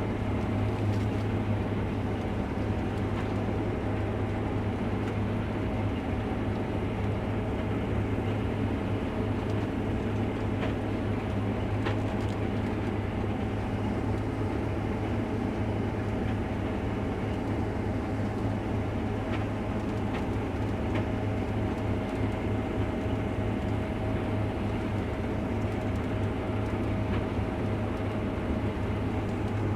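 Case IH Axial-Flow combine running steadily under harvest load: an even, low drone of engine and threshing machinery with a faint steady whine above it.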